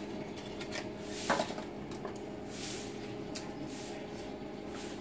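Quiet background noise with a faint steady hum, and a single short knock about a second in, with a few fainter clicks.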